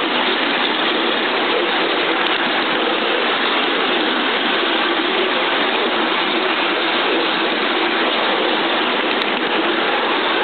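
5-inch gauge live-steam model of a Southern Railway King Arthur class 4-6-0 running along a miniature railway track, heard up close from the riding car behind it. Its running makes a continuous, even noise.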